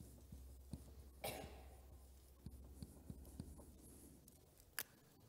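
Faint dry-erase marker writing on a whiteboard over a low room hum, with a few soft taps, a brief rustle about a second in and a sharp click near the end.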